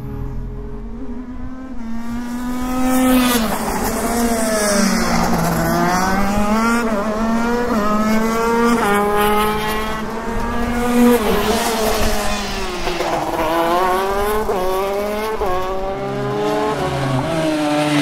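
Shifter kart engine revving hard through the gears. The pitch climbs and then drops sharply at each gear change, several times over.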